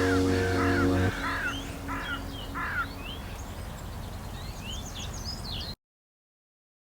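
Background music ending about a second in, followed by birdsong: a run of short, repeated chirps, with higher calls near the end. The sound cuts off abruptly shortly before the end.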